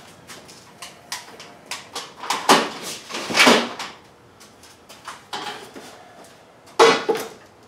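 Gear being handled on metal shop shelving: an uneven string of knocks and clatters, loudest a little past two seconds in, again around three and a half seconds, and once near the end.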